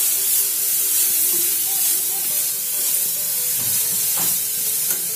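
Grated cauliflower sizzling steadily in hot oil in a steel kadhai while it is stirred with a metal spatula, with a few short scrapes of the spatula against the pan.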